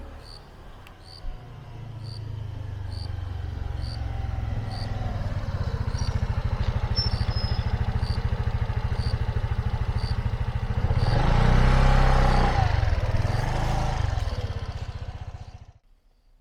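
Small scooter engine running on the move, most likely the rider's Suzuki Address V125S, with a faint regular ticking above it. The engine note builds, swells about three-quarters of the way through, then fades out just before the end.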